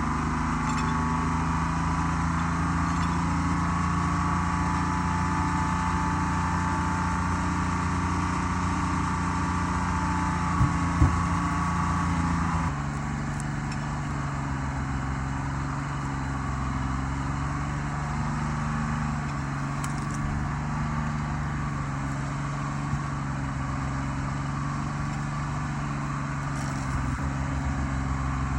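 Forestry forwarder's diesel engine running steadily with a higher whine over it, and two short knocks a little before halfway. Just under halfway in, the whine stops and the engine settles to a lower, quieter note for the rest.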